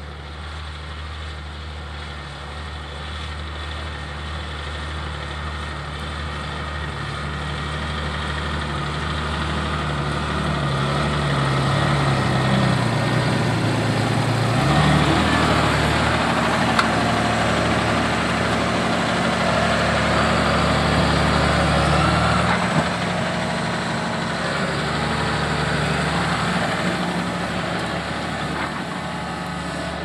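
John Deere 6170R tractor's six-cylinder diesel running steadily at about 1500 rpm under ploughing load, pulling a five-furrow plough through the soil. It grows louder as the tractor nears and passes close by about halfway through, then eases a little.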